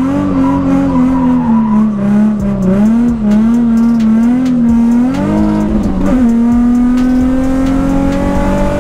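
Nissan 350Z's 3.5-litre V6 heard from inside the cabin while driving. The note wavers in pitch at first, breaks briefly just past halfway, then rises steadily as the car pulls.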